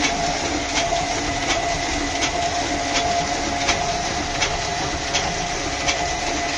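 Prakash sheet-fed offset printing press running, printing one sheet per cycle: a steady mechanical hum with a regular clack about every three-quarters of a second.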